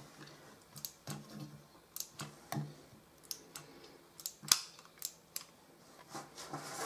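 Hot glue gun being squeezed with its nozzle inside a tin can: faint, irregular light clicks and taps.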